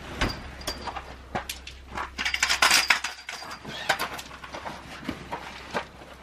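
Metal tent poles clinking and knocking as they are stood up and fitted into the rings of a canvas shelter's roof, with a denser stretch of clatter and canvas rustling about two to three seconds in.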